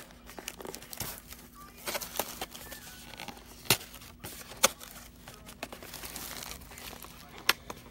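Plastic wrapping crinkling and tearing in scattered sharp snaps and rustles as a trading card box and its packs are opened, over a faint steady hum.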